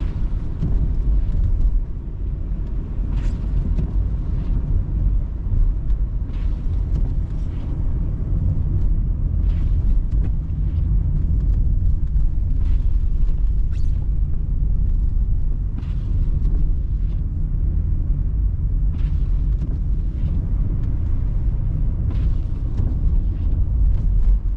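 Steady low rumble of a car driving on snow-covered roads, with faint short hisses now and then.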